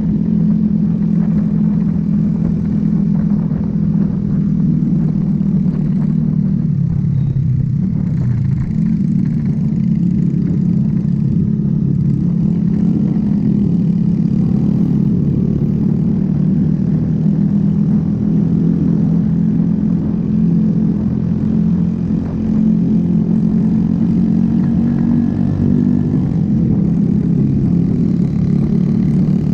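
A motorcycle's engine running steadily under way, heard from the rider's own bike, over wind rush. The engine note dips briefly about seven seconds in, then settles back.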